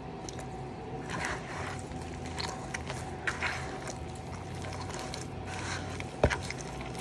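Hands mixing and squeezing wet masa dough in a plastic bowl: soft squishing and scraping as water is worked in, with one sharp knock about six seconds in.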